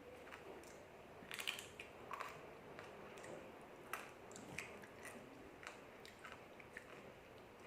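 Crunching and chewing of crispy fried stick noodles (mie lidi), a dry snack, heard as scattered short crackly bites with quiet chewing between.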